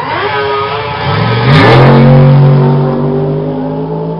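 Drag race cars launching off the starting line and accelerating hard down the strip: engine pitch climbs steeply, with a short burst of noise about a second and a half in at the loudest point, then holds steady as the cars pull away.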